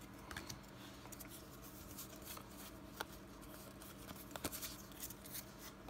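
Faint ticks and slides of Pokémon trading cards being handled and moved through a stack in the hands, over a faint steady hum.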